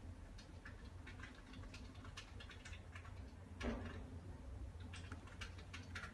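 Faint, irregular light clicks and ticks of hands on hard plastic, with one louder knock about three and a half seconds in, over a steady low hum.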